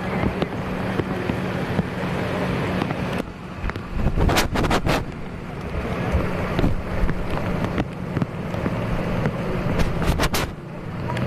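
A steady low motor hum with wind noise on the microphone, broken by two short runs of sharp clicks, about four and ten seconds in.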